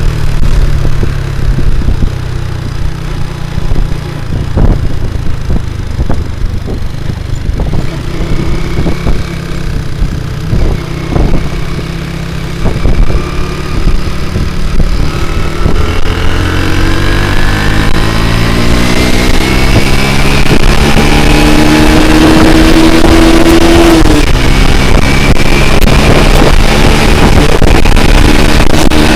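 Honda Grand single-cylinder four-stroke motorcycle engine under way. It runs low and rough with scattered knocks through the first half, then revs up steadily, its pitch climbing for several seconds before it holds high near the end.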